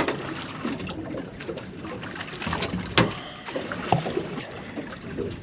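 Water slapping against a small boat's hull, with wind on the microphone and sharp knocks right at the start, about three seconds in and about four seconds in, as a mackerel is lifted aboard and handled.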